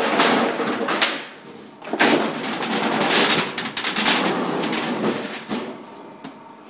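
Dried fruit tumbling off a wooden-framed wire-mesh drying tray into a bin, rattling and pattering against the mesh and the bin, with knocks from the tray's wooden frame. It comes in bursts: one in the first second, then a longer stretch from about two seconds in that dies away about a second before the end.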